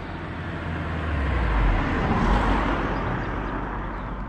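A road vehicle passing by: its noise swells to a peak a little past two seconds in, then fades away, over a steady low rumble.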